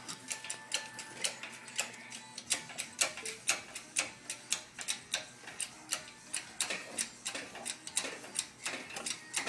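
Rapid, irregular clicking, about three or four sharp clicks a second, varying in loudness.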